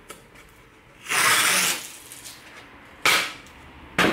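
Masking tape being pulled off its roll in two short rips, a half-second one about a second in and a sharper one about three seconds in, then a short knock near the end.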